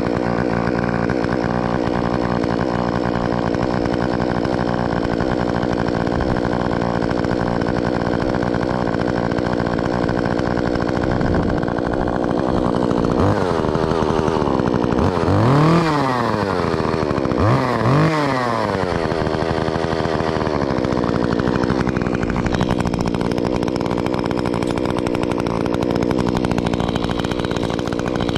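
Stihl MS 150 top-handle two-stroke chainsaw idling steadily, revved up and back down three times about halfway through, then settling back to idle.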